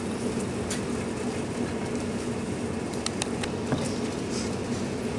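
Steady low hum of a ship's machinery, a droning tone under an even rumble. A few light clicks come about three seconds in.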